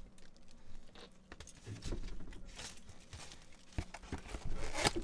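Scattered rustling, crinkling and light taps as a foam takeout container and its paper wrapping are handled.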